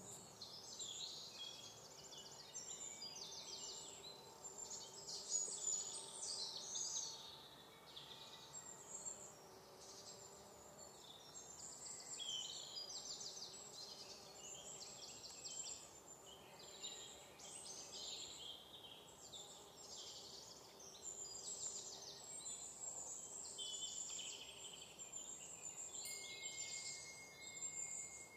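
Faint chorus of songbirds: many short chirps and rapid trills overlapping throughout, with a thin steady high whistle joining near the end.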